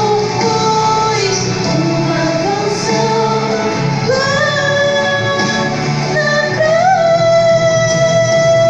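A solo female voice singing a melody over instrumental accompaniment, ending on one long held note that starts about seven seconds in.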